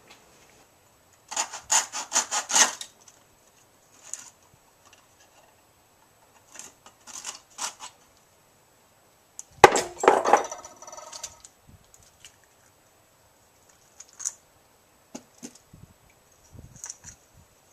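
Coping saw cutting through the last joined spots of a Sphero 2.0's plastic shell along its seam, in two short runs of quick back-and-forth strokes. About ten seconds in comes a sharp knock with a brief ringing, followed by a few light clicks as the plastic halves are handled.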